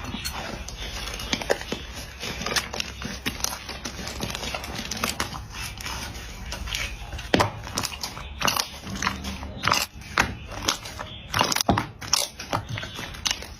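Slime being squeezed and worked by hand, giving an irregular run of sharp wet clicks and pops.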